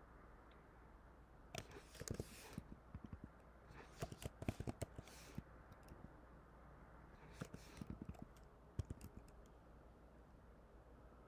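Typing on a computer keyboard: three short runs of key clicks, with pauses between them.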